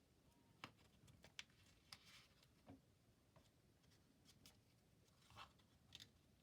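Faint crackles and rustles of a small square of paper being folded and creased by hand: a scatter of soft, short clicks over near silence.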